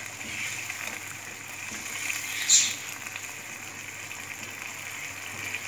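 Thin curry gravy of boiled eggs and potatoes sizzling and bubbling steadily in a kadhai, freshly thinned with water. About two and a half seconds in there is one short sharp sound of the spatula against the pan.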